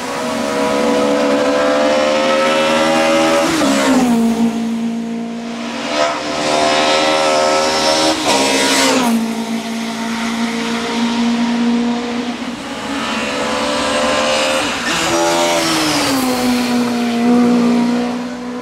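VW Polo 16V hillclimb race car's four-cylinder engine running hard at high revs, its pitch held high between three sharp drops about 4, 9 and 16 seconds in.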